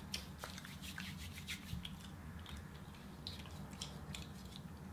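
Soft scattered crackles and clicks of a small crisp fried pastry being picked apart by hand, over a low steady hum.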